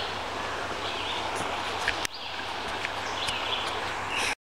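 Outdoor riverside ambience: a steady rushing hiss with short, high bird chirps every second or so. A sharp click about two seconds in, and the sound cuts off abruptly near the end.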